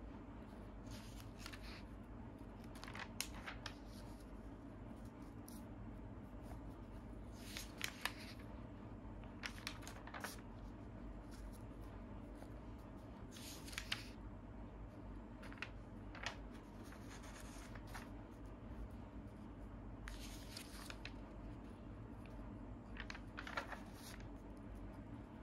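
Paper pages of a comic magazine turned by hand, a short rustle every few seconds, about eight times, over a faint steady low hum.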